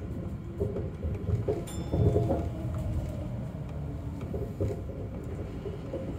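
Chiba Urban Monorail Type 0 train, a suspended monorail on rubber tyres, running as heard inside the driver's cab: a steady low rumble with a few knocks, the loudest about two seconds in, and a brief high ping just before it.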